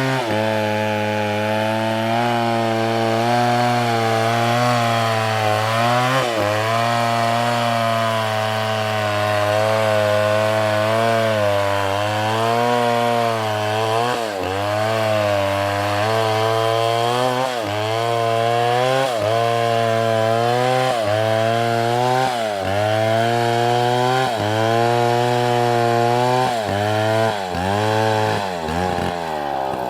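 Two-stroke chainsaw running at high revs while cutting wood. Its engine note dips and recovers over and over as the chain bites in, more often in the second half.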